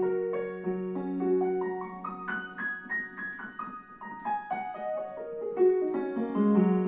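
Piano improvising on a pentatonic scale in an East Asian traditional style: low chord notes held under a single-note melody that climbs step by step and then steps back down.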